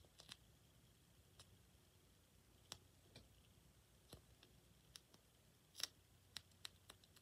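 Near silence broken by about ten faint, scattered clicks and ticks as fingers squeeze and turn a squishy toy close to the microphone, the loudest about six seconds in.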